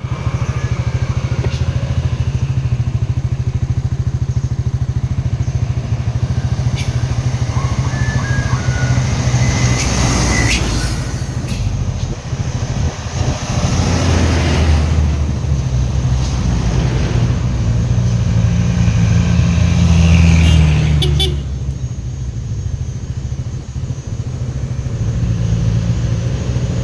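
Road traffic: a steady low engine rumble throughout, with motorcycles and other vehicles passing louder around ten, fourteen and twenty seconds in.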